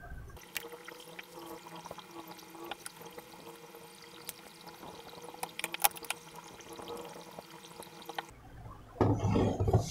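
Screwdriver turning screws through a circuit board into its heat sink: faint scraping with a few sharp clicks, and a louder burst of handling noise near the end.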